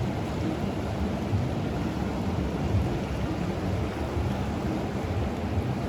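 Steady low rushing rumble of the Ganga's flowing water, mixed with wind buffeting the microphone.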